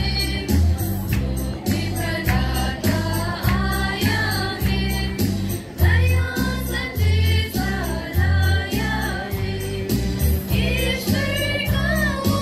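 Youth choir singing a Christmas song, accompanied by an electronic keyboard playing bass notes and a steady beat.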